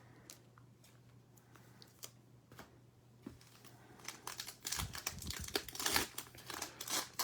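Plastic wrapper of a Select Football card pack crinkling and tearing as the pack is opened: a few faint clicks of handling first, then a dense crinkling run from about four seconds in.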